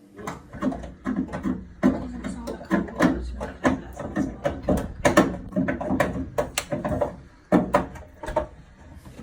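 Central heating boiler knocking and banging irregularly, a few knocks a second over a low rumble: air in the system, with air probably in the boiler itself.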